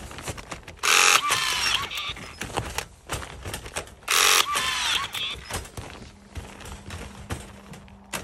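A battery-powered MAX rebar tying tool tying wire around rebar mat crossings twice, about a second in and about four seconds in. Each tie is a brief, loud whir from its motor with a whine that glides in pitch.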